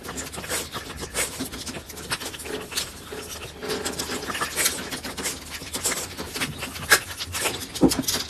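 A dog licking at a squeeze-tube pet treat through wire cage bars: irregular wet licking and smacking mixed with the rustle of the plastic packet, with two sharper clicks near the end.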